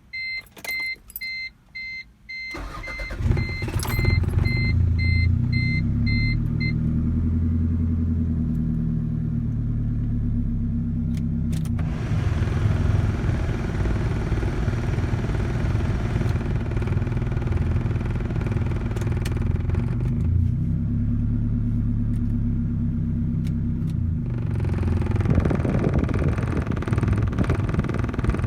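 A car's warning chime beeps repeatedly, then a 1988 Toyota Camry's engine cranks and starts about three seconds in and keeps running at idle with a misfire, an engine the owner says bogs down badly with the AC on. A louder rushing noise joins about twelve seconds in.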